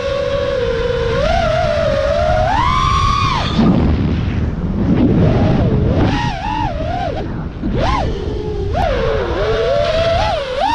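FPV quadcopter's electric motors and propellers whining, the pitch rising and falling with each throttle change, with a sharp climb about three seconds in and quick swoops later, over rumbling wind and prop wash on the onboard camera.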